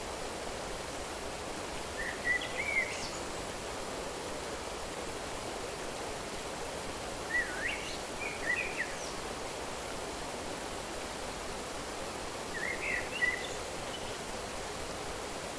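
Steady outdoor rushing ambience, like flowing water, with a bird chirping in three short bursts: about 2 seconds in, in the middle, and near the end.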